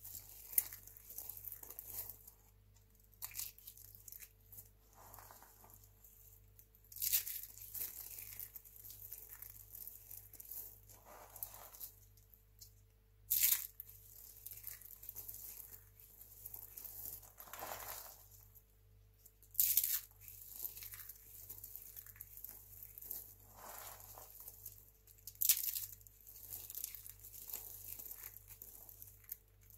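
Dry, crispy soap flakes from recycled soap roses being scooped and crumbled by hand: a light crackling rustle with louder crisp crunches every few seconds.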